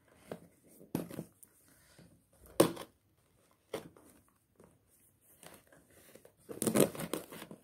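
Plastic parcel wrapping crinkling and tearing as hands pull at it to get it open, in several short rustles. The loudest comes about two and a half seconds in, and there is a longer run of rustling near the end.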